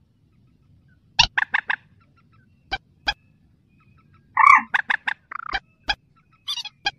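Calls of a mandar sawah, a paddy-field rail: short, sharp, loud notes, some in quick runs of three or four and others single, with brief gaps between them.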